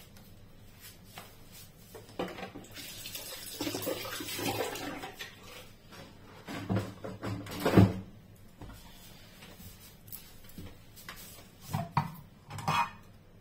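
A kitchen tap runs for a few seconds, then kitchenware knocks and clatters, with one loud clank. Near the end a spatula knocks and scrapes in a frying pan.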